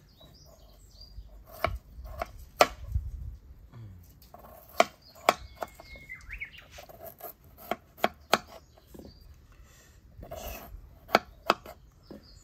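Knife cutting raw potato and carrot held over an aluminium saucepan: about ten sharp, irregular clicks and knocks as the blade cuts through and chunks drop into the pan.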